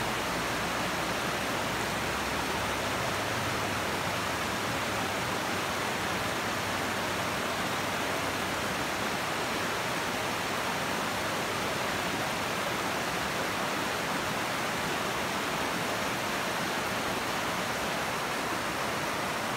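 Steady rush of a mountain creek's white water, an even hiss that holds unchanged throughout.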